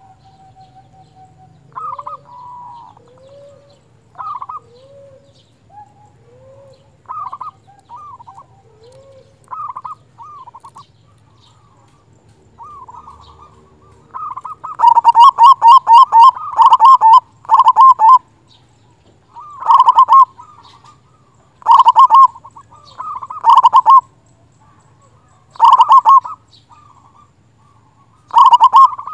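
Zebra dove (perkutut) calling: soft, spaced cooing notes through the first half, then from about halfway loud bouts of its rapid staccato cooing song, the first about three seconds long and the rest about a second each, repeated every two seconds or so.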